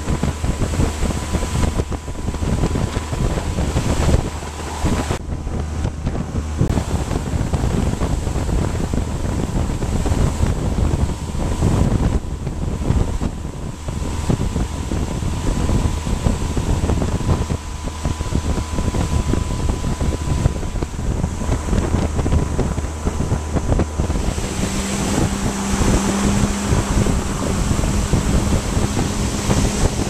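Motorboat engine running steadily under way, with wind buffeting the microphone and water rushing past the hull. About 24 seconds in, the engine's pitch changes.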